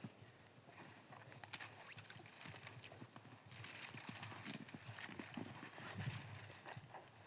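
Irregular crunching and knocking, with a denser stretch of crunches about halfway through.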